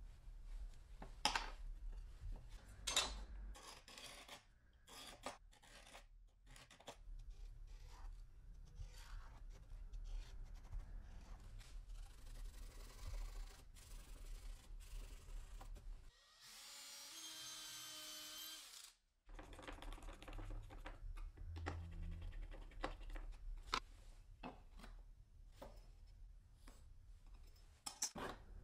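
Hand-tool work on wood: irregular scraping and rubbing with sharp clicks and knocks. About two thirds of the way through, a steady pitched whine lasts about three seconds.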